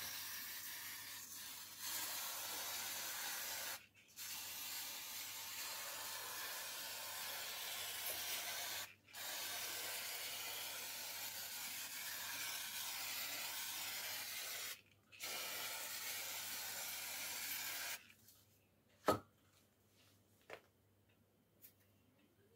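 Aerosol paint-stripper can spraying in four long bursts of about four to six seconds each, with short breaks between them. The spraying stops about eighteen seconds in, and a couple of faint clicks follow.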